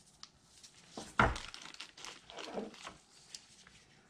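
Transmission parts being handled on a wooden workbench: one sharp knock of metal parts about a second in, then a couple of seconds of rustling and small clinks as a loose bearing is set down on the bench.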